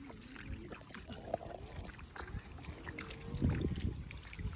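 Shallow water splashing and trickling as people wade through it barefoot, with soft irregular footstep splashes, the heaviest a little past the middle.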